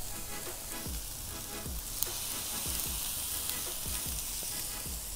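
Chicken skin sizzling on a hot charcoal grill, a steady hiss, with irregular low thuds underneath.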